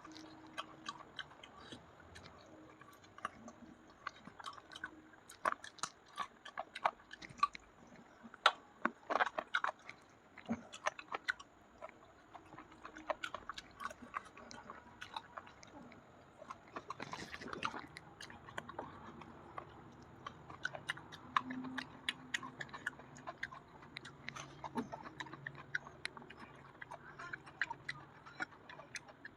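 Close-miked chewing and eating: wet mouth smacks and soft bites, irregular and continuous, of someone eating kachori with chicken curry.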